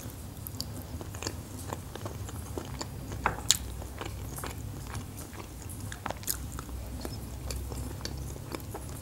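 A person chewing a mouthful of battered sweet-and-sour chicken close to the microphone, with many small irregular wet mouth clicks, over a steady low hum.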